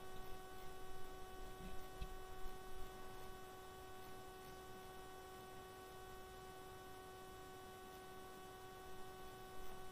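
Faint, steady electrical hum: a constant whine of several fixed tones under the room tone of the recording, with a few soft taps in the first three seconds.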